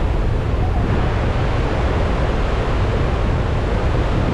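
Steady roar of rushing water from Athirappilly waterfall, swollen by the monsoon rains.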